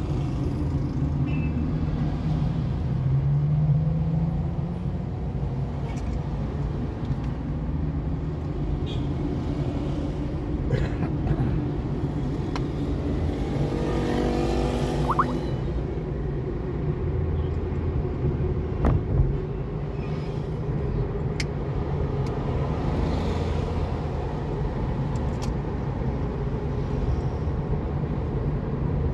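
Car being driven, heard from inside the cabin: a steady rumble of road and engine noise. About halfway through, another vehicle passes close by, with a brief rising sweep of engine noise.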